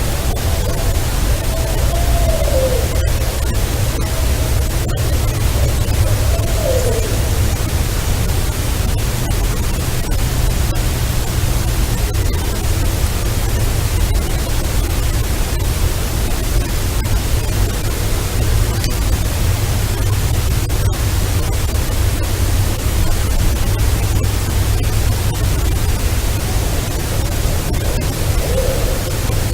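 Steady hiss and low rumble of recording noise, with faint wavering, howl-like calls rising and falling in the first few seconds and again briefly near the end.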